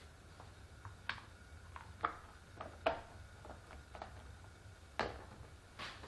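A handful of light knocks and clicks, as of containers and kitchen items being picked up and set down, the sharpest about three and five seconds in.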